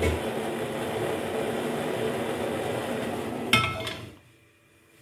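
Gas stove burner on a high flame with a steady hiss. About three and a half seconds in, a single metal clank rings briefly as a karahi is brought onto the burner grate, and the hiss stops just after.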